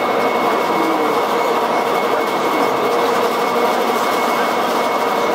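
Steady, loud mechanical drone of bogie-exchange workshop machinery, with a few faint steady whines running through it.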